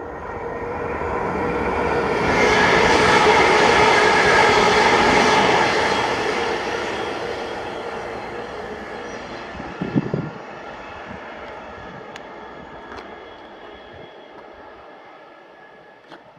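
Freight train passing: the rumble of the train and wheels on the rails swells to a peak a few seconds in, then fades away steadily as it moves off. A brief low thump comes about ten seconds in.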